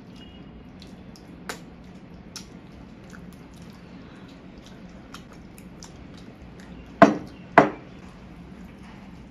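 Two sharp knocks of tableware about half a second apart, a glass bowl being set down on the table among the steel plates, with faint small clicks and handling sounds of eating around them.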